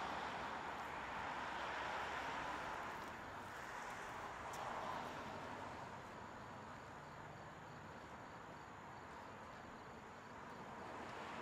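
Street traffic going by, rising and fading a few times, with crickets pulsing faintly and steadily.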